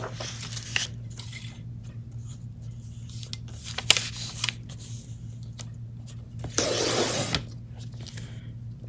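Fiskars sliding paper trimmer with a freshly sanded blade cutting through a sheet of paper: one quick slicing stroke, under a second long, about two-thirds of the way in. Before it, light clicks and rustles of the paper and cutting head being set in place.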